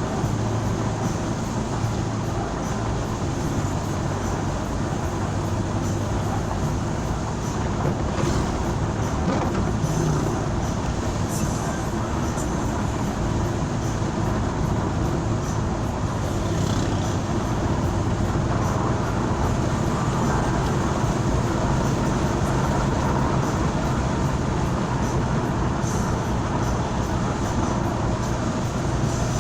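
Steady engine and road noise of a moving vehicle, a constant low hum under an even rush.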